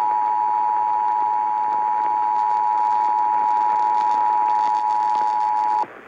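Emergency Alert System two-tone attention signal, a steady loud dual-pitch tone, heard through an AM radio's speaker; it cuts off abruptly near the end. It signals an incoming tornado warning broadcast.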